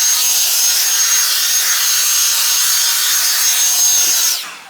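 Drybar hair dryer blowing steadily, with a high thin motor whine over the rush of air. It is switched off a little before the end, and the whine falls away as the motor spins down.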